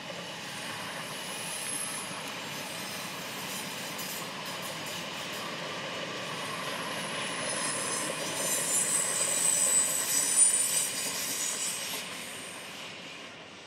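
Yellow-and-blue NS double-deck electric passenger train passing at a distance, its wheels running on the rails. The noise builds to a peak about ten seconds in, with a high squeal near its loudest, then fades near the end.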